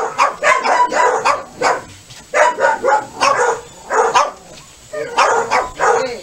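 German Shepherd dog barking repeatedly, short barks several a second in groups with brief pauses between.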